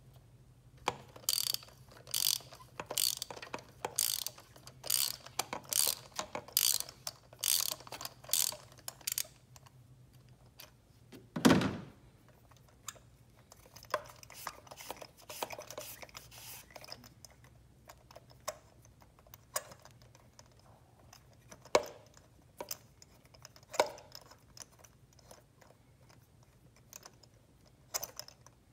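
Ratchet wrench clicking in repeated strokes, about two a second for the first nine seconds, then in scattered clicks. One loud knock comes about eleven seconds in.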